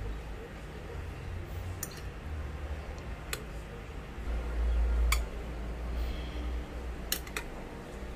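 A metal spoon stirring chicken legs and potato chunks in a thin sauce on a porcelain plate, clinking sharply against the plate about five times. A low rumble swells about halfway through.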